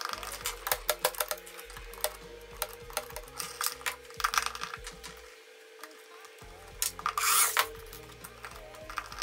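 Clicks, knocks and rubbing of small hardware and hand tools while a fingerprint cabinet lock is mounted on a cabinet door, with a half-second burst of noise about seven seconds in. Background music plays under it.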